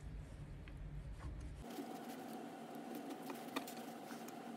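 Faint steady background hum with a few light clicks and taps as an aluminium motorcycle carburettor is handled. The low hum stops abruptly about a second and a half in and a steadier, higher hum takes its place.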